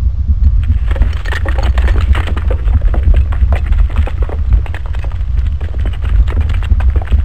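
Logo-intro sound effect: a loud, deep rumble with a dense run of crackling hits over it, starting about half a second in.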